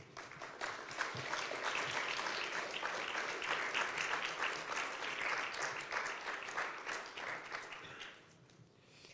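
Audience applauding. The clapping builds over the first second, holds steady, and dies away about eight seconds in.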